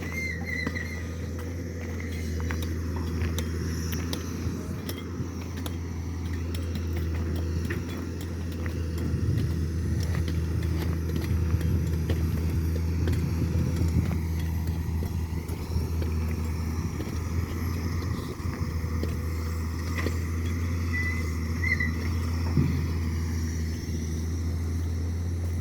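A large engine running steadily with a constant low drone, with scattered clicks and knocks over it.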